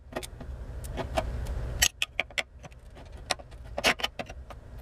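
Small hand-held opener cutting around the sheet-metal lid of a sealed ammunition spam can: irregular sharp metallic clicks and snaps, several a second, as the blade bites along the seam.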